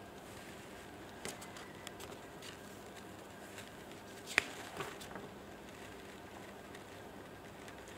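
Quiet room tone: faint hiss with a low steady hum, broken by a few small scattered clicks, the sharpest about four and a half seconds in.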